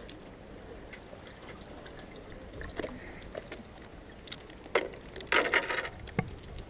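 Small waves lapping against the rocks of a sea jetty. About five seconds in come a few sharp clicks and a brief scuffling rustle as a small saupe is brought in and handled on the rocks.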